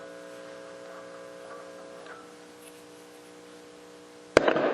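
Bass amp hum from the Glarry jazz bass's live pickups: a steady hum with several held tones, slowly fading. Near the end, a sharp tap on the bridge pickup comes through the amp as a loud knock with a short rasp, the quick way to tell which pickup is which.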